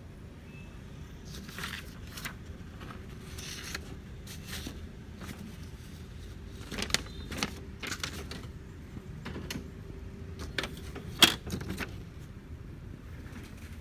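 Printed paper sheets being handled, with scattered rustles and clicks, a sharper click about eleven seconds in, over a faint steady hum.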